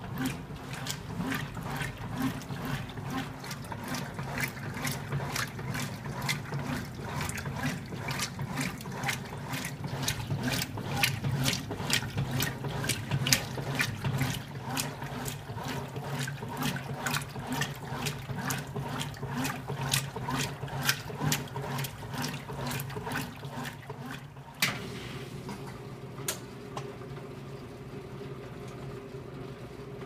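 Belt-drive Whirlpool top-load washer agitating: regular sloshing of water and clothes, about two to three swishes a second, over a low motor and transmission hum. About 25 seconds in the swishing stops abruptly, leaving a steady hum.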